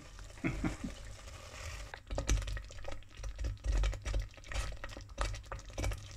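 Thick minced-beef and tomato chilli simmering in a pot, the sauce bubbling and popping irregularly, the pops coming thicker from about two seconds in.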